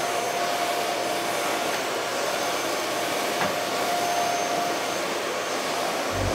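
Festool CT Sys dust extractor running at a steady pitch, its motor whining over rushing air as the wand vacuums the floor, with one light knock about three and a half seconds in.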